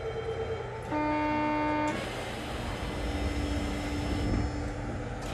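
Electronic buzzer sounding for about a second, a steady tone with many overtones, over the steady hum of a stationary New Tram car; a sharp knock near the end.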